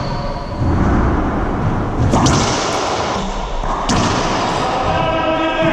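Racquetball play in an enclosed court: a few sharp, echoing cracks of the rubber ball being struck by a racquet and rebounding off the walls, the loudest about two and four seconds in. A steady low rumble runs underneath, and a held, pitched tone begins near the end.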